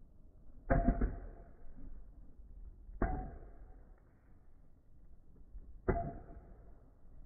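Two Beyblade spinning tops clashing three times, first about a second in, then near three seconds and near six seconds. Each clash is a sharp clack with a short ring, and the tops whir faintly in between.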